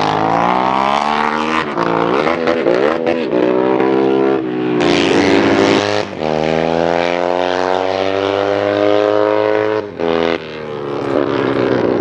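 Racing motorcycle engines revving hard up the hill climb. In the first few seconds the pitch rises, then dips and blips through a corner. After a break it climbs steadily, with a short drop near the end like a gear change.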